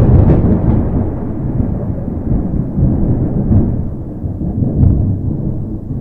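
Thunder: a sharp crack right at the start, then a long low rolling rumble that swells again a couple of times.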